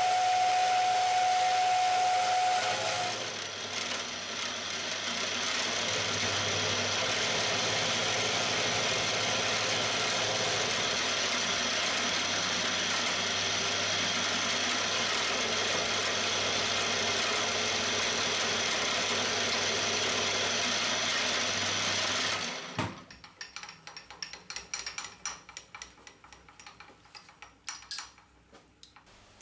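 Milling machine running and end-milling the end of a vise soft jaw to length: a steady run with a hiss, and a thin whistling tone in the first three seconds. About 23 seconds in the machine stops, leaving scattered clicks and taps.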